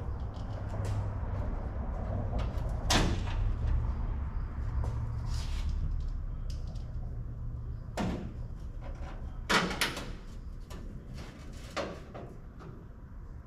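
A handful of sharp clicks and knocks from hand work on the truck's front headlight and trim, one about three seconds in, one at eight seconds, a quick pair just after, and one near the end, over a low steady hum.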